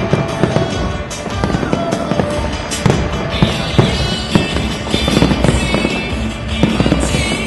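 Fireworks display: many shells bursting in rapid, irregular bangs, with stretches of crackling about three and a half seconds in and near the end, over music.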